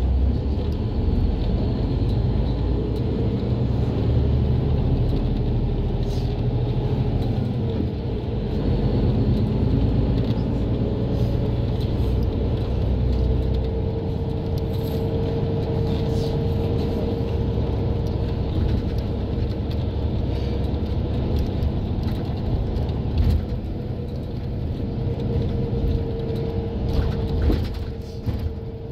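Engine and road rumble of a city bus heard from inside while riding, with a steady whine coming in about halfway through.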